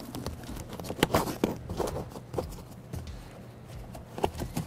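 Handling noises as gloved hands push a wiring connector under a truck's vinyl floor covering: irregular rustles, scrapes and light knocks, the sharpest about a second in and again near the end.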